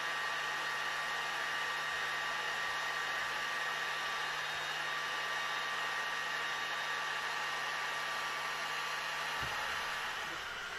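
Leister Sonora S1 hot-air hand tool running steadily: the rush of its blower with a thin, even whine. A low hum underneath stops near the end.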